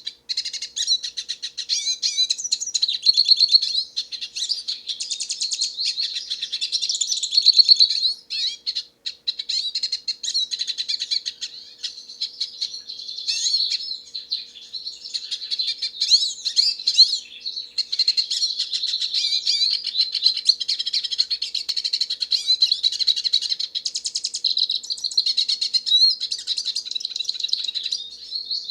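Hooded siskin (black-headed pintassilgo) singing a long, rapid, twittering warble of high chirps and trills, with a brief break about eight seconds in.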